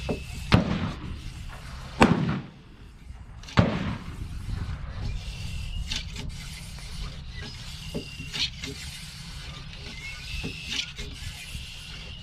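A cleaning rod and solvent-wet bore brush are stroked back and forth through a Christensen Arms MPR rifle barrel, rubbing with a short squeak and click at each stroke, roughly every two and a half seconds. In the first four seconds, three loud gunshots ring out from elsewhere on the range, each with a long rumbling tail.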